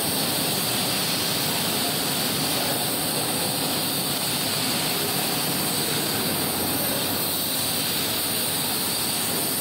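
Steady, even rushing noise of running bottle-packing machinery on a heat-shrink wrapping line, with no rhythm or breaks.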